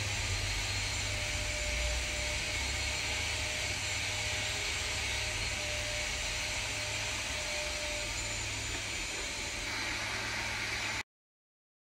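Steady machine-like noise with a low rumble and a faint constant tone, unchanging throughout, that cuts off abruptly about eleven seconds in.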